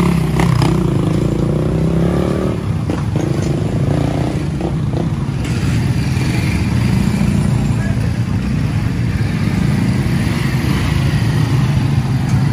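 Busy street traffic with a steady, continuous engine rumble from motorcycles, motorcycle-sidecar tricycles and cars moving slowly past, plus background voices.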